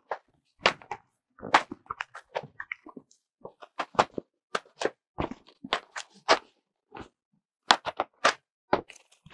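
Cardboard box and packing being handled and pulled open by hand: an irregular run of sharp knocks, scrapes and crinkles as flaps are folded back and the inner box is shifted.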